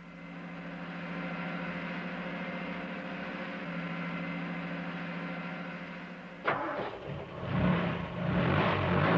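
Fire engine's motor running steadily. About six and a half seconds in it turns suddenly louder and rougher.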